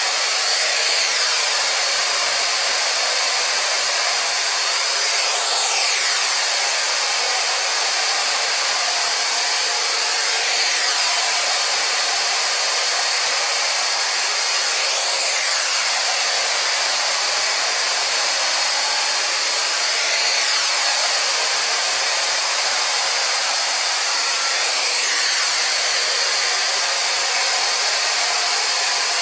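Xiaomi robot vacuum cleaner running: a steady whir of its suction fan and brushes, with a sweeping change in pitch about every five seconds.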